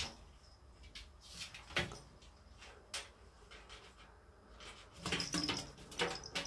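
A cat's paws and claws knocking and scrabbling on a bathtub as it pounces on a mouse: a few separate sharp knocks and scuffs, then a quick cluster of them about five to six seconds in.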